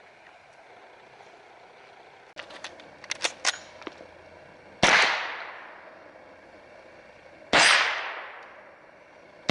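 A few quick metallic clicks, then two single shots from an AR-15 rifle firing .22LR through a conversion kit, about two and a half seconds apart, each echoing away over a second or so.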